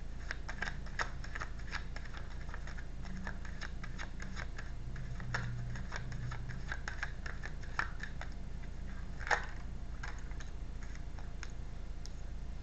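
Tarot cards being handled on a table: a run of light, irregular clicks and taps as the cards are moved and laid down, with one louder tap about nine seconds in.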